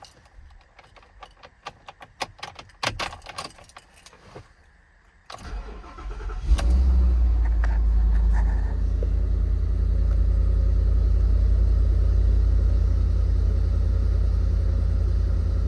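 A scatter of clicks and light knocks. Then, about five seconds in, the Ford F-600's 7.3-litre gas V8 cranks, catches about a second later and settles into a steady idle.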